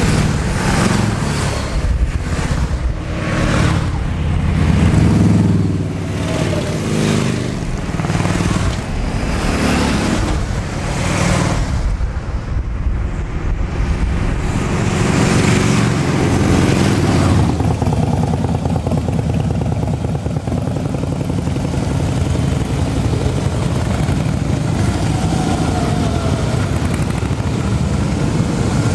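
Harley-Davidson V-twin motorcycle engines running, surging up and down over and over in the first part. About two-thirds of the way through they settle into a steady, even idle rumble.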